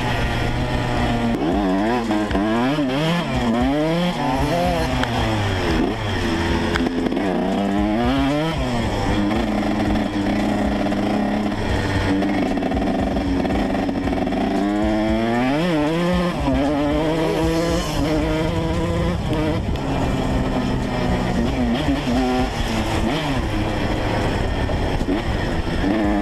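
Single-cylinder two-stroke engine of a 2012 Yamaha YZ125 motocross bike running, its pitch climbing and dropping again and again as the throttle is opened and closed, with big rises about three and eight seconds in and again around fifteen seconds.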